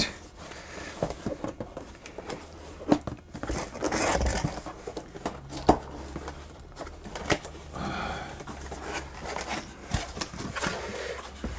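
Cardboard carton being handled and its flaps pulled open: irregular scraping and rustling of cardboard, with a few sharp taps.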